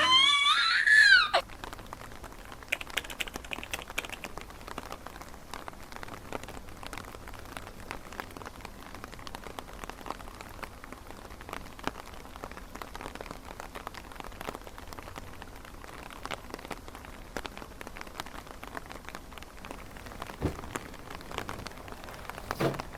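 Rain falling: a steady hiss dotted with many small drop ticks, starting as a song ends about a second in.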